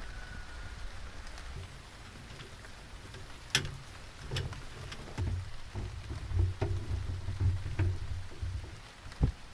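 Soft steady patter like light rain, then from about three and a half seconds in, scattered sharp clicks and knocks over low thumps as a folding camp table and folding chair are handled and sat on, on a bamboo deck.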